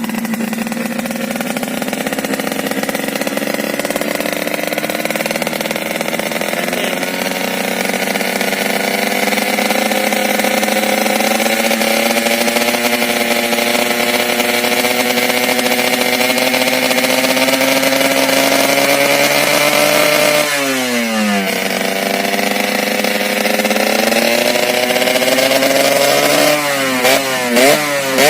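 Yamaha RX-King's two-stroke single-cylinder engine running through a standard-racing aftermarket exhaust. It holds a fast idle with the revs creeping slowly up for about twenty seconds, dips sharply and climbs again, then gives several quick throttle blips near the end.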